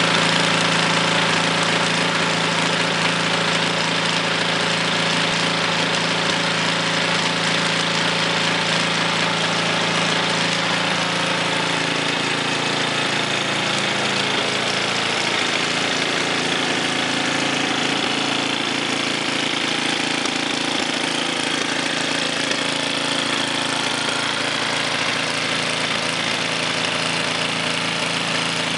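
Briggs & Stratton 250cc single-cylinder four-stroke engine of a Craftsman Snow Shredder snowblower running steadily after an engine and carburetor rebuild. Its note changes slightly about twelve seconds in, then holds steady again.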